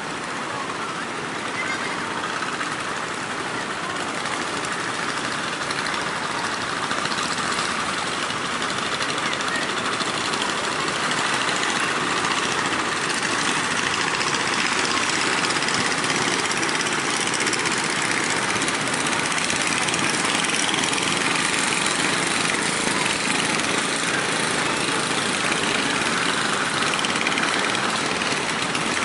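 Steady rushing noise of rough surf breaking along the shore, with wind, growing a little louder over the first several seconds.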